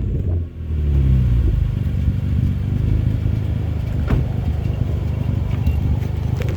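Nissan engine through a custom exhaust, its revs falling off at the start and settling into a steady idle, with one short sharp click about four seconds in.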